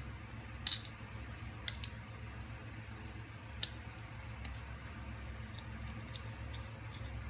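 A few light, sharp clicks and ticks of a hex driver and small bolts against carbon-fibre frame plates as a bolt is screwed in by hand, over a faint low hum.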